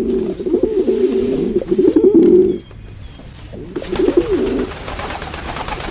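Pigeons cooing: a dense, overlapping run of low coos that breaks off about two and a half seconds in, then a shorter burst of coos a second later. An even hiss comes in under the later coos and carries on to the end.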